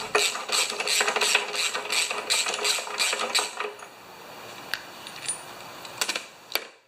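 Ratchet wrench with a spark plug socket clicking steadily, about three to four clicks a second, as the old spark plug is backed out of a Briggs & Stratton mower engine. The ratcheting stops about halfway through, and a few single clicks follow.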